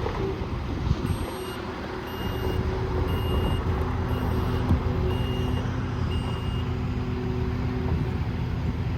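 Kubota SSV75 skid steer loader's diesel engine running steadily while its backup alarm beeps six times, about once a second, as the machine reverses.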